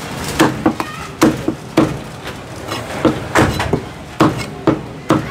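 Heavy Chinese cleaver chopping a roast duck into pieces on a thick wooden chopping block: an irregular run of sharp chops, about three a second.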